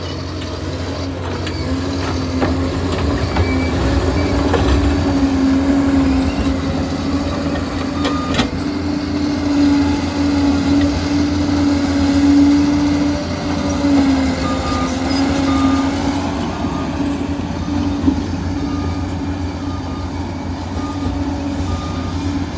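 Liebherr 746 crawler bulldozer's diesel engine running steadily with a deep rumble and a drone whose pitch wavers slightly as the machine works.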